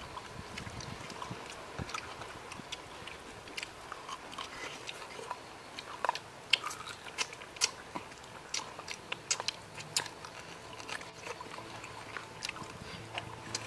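Close-up mouth sounds of two people biting and chewing roasted pig legs: irregular wet chewing clicks and smacks, busiest about six to eight seconds in.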